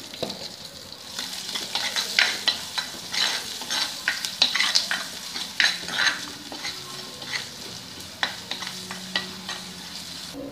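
Chopped shallots and curry leaves sizzling in oil in a clay pot while a steel spoon stirs them, scraping and clicking against the pot in quick, irregular strokes. The onions are being sautéed until soft.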